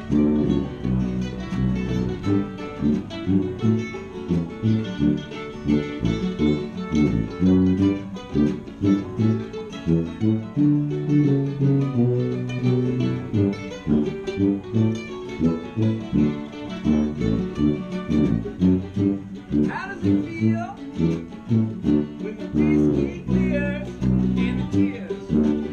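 A live acoustic band playing a tune: strummed acoustic guitar and fiddle over a steady tuba bass line. The fiddle slides between high notes about twenty seconds in and again near the end.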